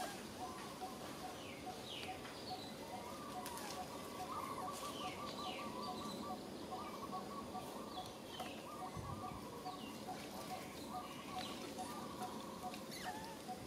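Animal calls: a short note repeated steadily about three times a second, with high, quick falling chirps scattered over it and a warbling trill now and then. A single low thump about nine seconds in.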